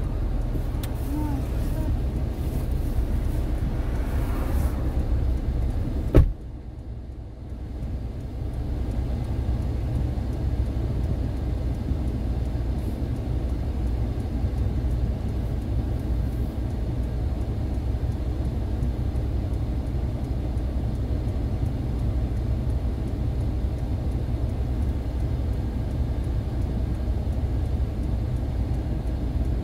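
Steady low rumble of a car's engine and tyres on the road, heard from inside the vehicle while driving. A sharp click about six seconds in is followed by a brief drop in the noise.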